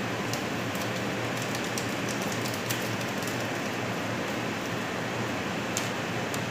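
Kitchen exhaust fan running with a steady rushing hum, noisy enough to fill the room, with a few faint light clicks from kitchen work.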